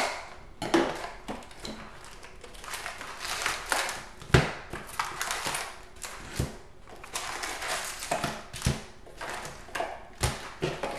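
Cardboard box of hockey cards being torn open and its packaging handled, with rustling and scraping and a few sharp knocks on the table.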